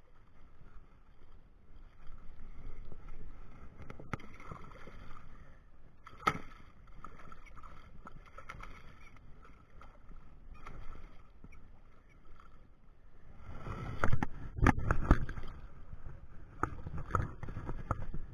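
A hooked American shad splashing at the river surface as it is reeled in and landed, over steady water lapping, with a few sharp clicks. The heaviest splashing comes about 14 seconds in.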